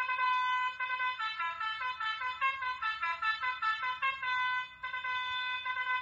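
Telolet horn music: a multi-tone bus or truck horn playing a brassy tune of held notes stepping up and down.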